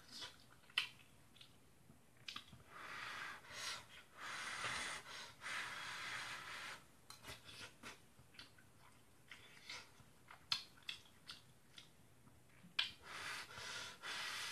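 Eating spaghetti with chopsticks: long slurps of noodles about three seconds in, again from about four to seven seconds and near the end, with chewing and short clicks in between.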